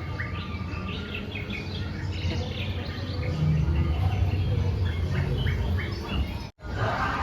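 Many short bird chirps and calls over a steady low hum. The sound cuts out for an instant near the end.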